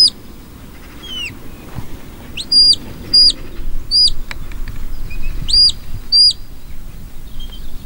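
Shepherd's whistle commands to a working sheepdog: a run of sharp, high whistle notes, each swooping up, holding and dropping off, mostly in quick pairs with a lone note between.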